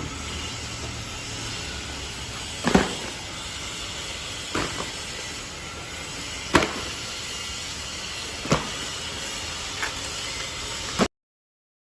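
Banana stem cutting machine running with a steady hiss, and a sharp chopping knock about every two seconds as it cuts. The sound cuts off abruptly near the end.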